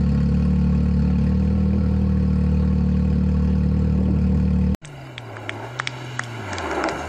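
Rally side-by-side (UTV) engine idling steadily. About five seconds in the sound cuts to another side-by-side racing on a gravel road: its engine pitch rises and falls through gear changes and grows louder as it approaches, with scattered sharp ticks.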